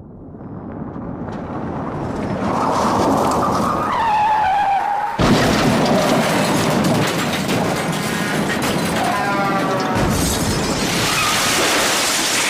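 A run of loud, noisy sound effects: a rumble that swells up with a wavering high tone, then abrupt cuts to new noisy effects about five and ten seconds in.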